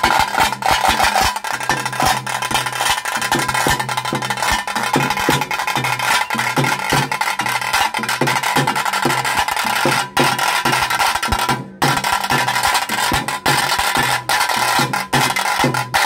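Tase drums of a pili vesha (tiger dance) troupe beating a fast, steady rhythm of sharp stick strokes, with a steady hum underneath. The drumming breaks off for a moment about three-quarters of the way through.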